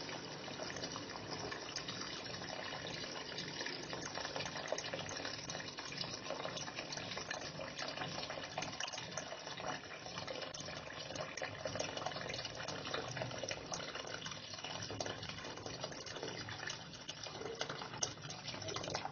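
Water poured in a steady stream from a jug into a large pot of curry, splashing into the liquid: four cups of water being added to a beef tripe stew. The pouring stops at the very end.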